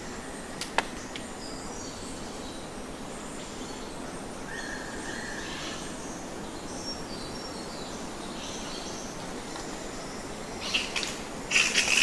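Fruit bats squeaking with short high chirps over a steady background hiss, with a sharp click about a second in and a loud burst of squeaks near the end.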